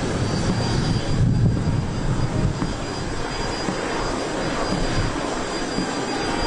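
Jet engines of the Korean presidential aircraft running with a steady rumble and a faint, thin high whine.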